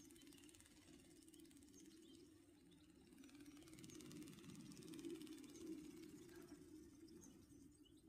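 Faint whirring and rapid clicking of a Go Go Bird RC ornithopter's small electric motor and flapping-wing gearbox in flight, swelling slightly midway.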